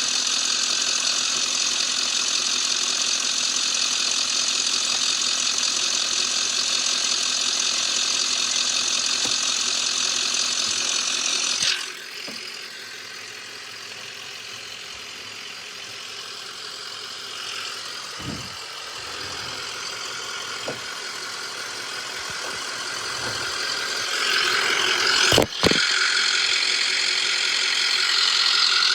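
Ambulance engine idling with a steady whir and hiss over it. About twelve seconds in, the whir cuts off suddenly and the idle goes quieter, with a few light clicks. A sharp knock comes near the end, and the whir builds back up.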